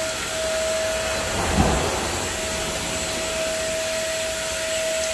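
Vacuum cleaner running steadily with a constant whine over a rushing hiss, with a brief low bump about a second and a half in.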